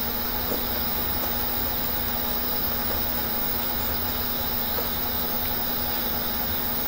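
Electric fan running: a steady hiss with a low hum.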